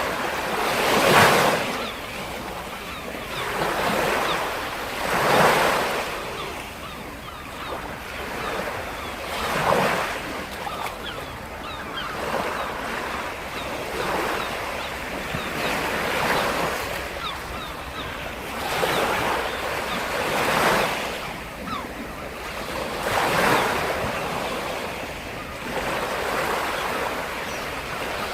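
Sea waves breaking on the shore, a fresh wash of surf every few seconds over a steady hiss, with some wind on the microphone.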